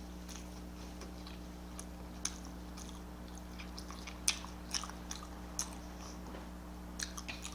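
A person chewing food close to the microphone: scattered soft wet clicks and smacks of the mouth, over a steady low electrical hum.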